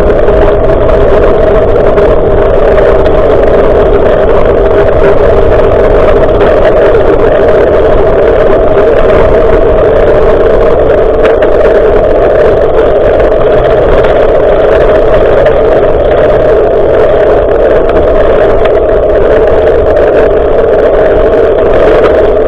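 Loud, steady wind rush and riding noise on a bicycle-mounted action camera's microphone, an unbroken hum-like roar with no separate events.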